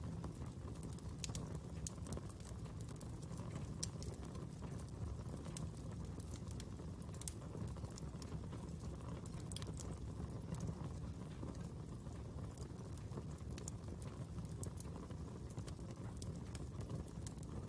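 Fire burning, crackling with irregular sharp pops and snaps over a steady low rumble.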